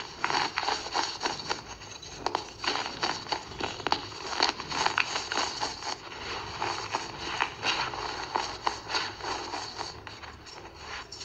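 Pressed baking soda lumps crushed and rubbed between the fingers and against a hard surface: a dense, irregular run of small crunches, crackles and gritty scrapes.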